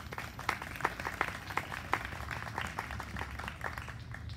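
Small audience clapping: scattered, irregular handclaps that thin out near the end.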